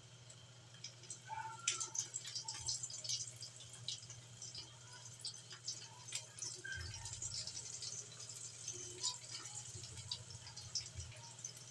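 Wet raw chicken pieces being handled and pressed into a plate of flour for dredging: soft, irregular sticky clicks and pats, over a steady low hum.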